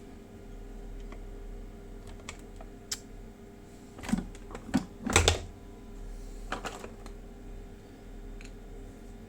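Scattered clicks and clacks of hard plastic and metal airsoft gun parts being handled while the motor cap is tried over a brushless motor. A run of louder clacks comes about four to five and a half seconds in, and a shorter one near the seven-second mark.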